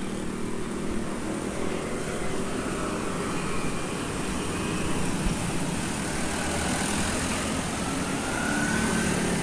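Road traffic on a multi-lane city street: motorcycles and cars passing with a steady engine hum and tyre noise. A faint rising whine comes in near the end.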